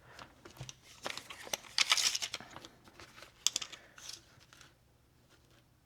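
Crinkling and rustling of a Magpul DAKA pouch's stiff coated fabric being handled, with scattered small clicks, in two spells before it goes quiet near the end.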